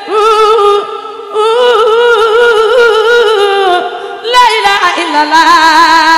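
A woman sings drawn-out, melismatic phrases of the Sufi dhikr chant "la ilaha illa Allah" without instruments. There are three long phrases with a strong vibrato on the held notes.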